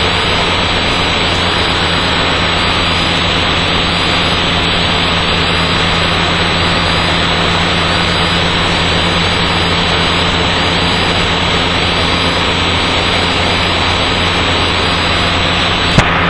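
Steady drone of the Dyke Delta's Mazda rotary engine and propeller in flight, heard through the aircraft's comm system. There is one sharp click near the end.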